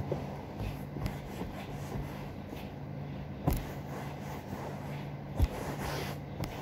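A cloth being handled and rubbed against a sofa: soft rustling and rubbing, with two short knocks about three and a half and five and a half seconds in, over a steady low hum.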